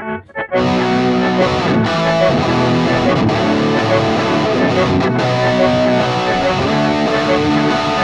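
Distorted electric guitar through a base 5150 high-gain amp tone playing a heavy riff along with the song's recorded track. It starts with short, choppy stabs and settles into continuous chords about half a second in.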